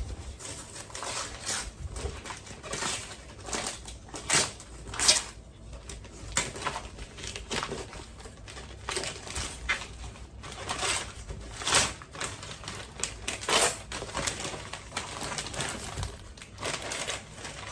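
Gift packaging being handled and opened: irregular crinkling, rustling and sharp clicks and snaps, with the loudest snaps about 4, 5, 12 and 13.5 seconds in.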